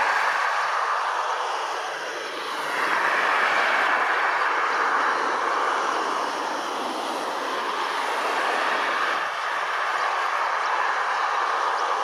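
Distant Airbus A320 jet engines running at low power as the airliner moves along the runway: a steady rushing whoosh that eases slightly a couple of times.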